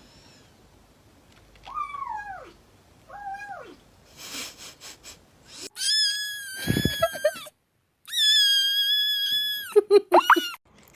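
Cats meowing in a string of short clips: two short falling meows, then two long high-pitched drawn-out cries that cut off abruptly, then a few quick short calls near the end.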